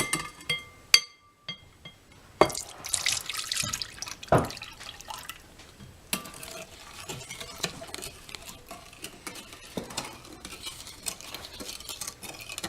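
A few sharp clinks against a mixing bowl, then curdled soy milk poured into the bowl of sugar and extracts and stirred, with a spoon scraping and knocking against the bowl.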